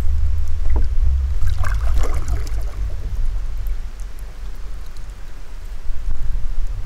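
A canoe paddle dipping into the water, with a splash and trickling drips about two seconds in and a light knock just before, over a steady low rumble.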